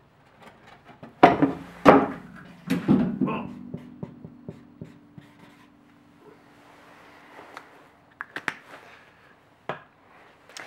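Handling and writing noise of a felt-tip marker on a sheet of paper: a few sharp knocks about a second in, followed by a low lingering ring, then quiet scratching of marker strokes and a few clicks near the end.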